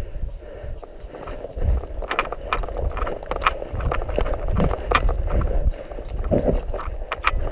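Footsteps on paving and dry grass with the clicking and rattling of carried gear, in an irregular run of sharp clicks over a low rumble of movement on the microphone.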